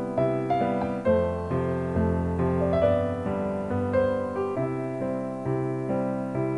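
Slow, gentle piano music: struck notes and chords that ring and fade, with a new note about every half second.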